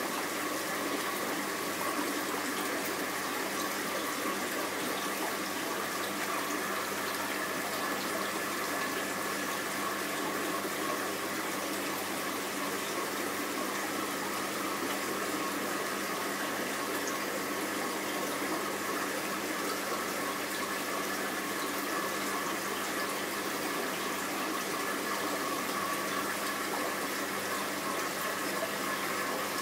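Steady running-water sound of aquarium filtration and circulation, with a faint constant hum underneath.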